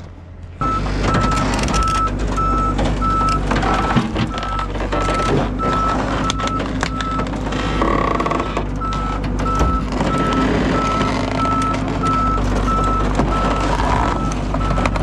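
Tracked excavator moving on a trailer deck: its travel alarm beeps steadily about twice a second over the running diesel engine, with occasional clanks from the steel tracks.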